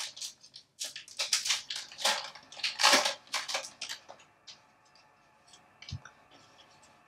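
Foil booster pack wrapper crinkling and tearing open in rapid bursts, then fainter clicks of trading cards being handled, with one soft low thump near the end.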